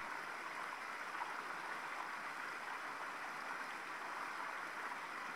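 Steady, even hiss of background noise with no distinct clicks or knocks.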